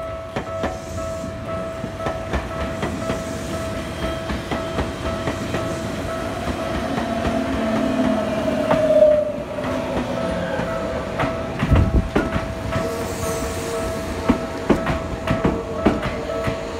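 Tokyu 8500 series electric train pulling slowly out and rolling past close by, with a steady high hum throughout. A brief wavering squeal is loudest about nine seconds in, and from about twelve seconds in the wheels click and thump over the rail joints and points as the cars go by.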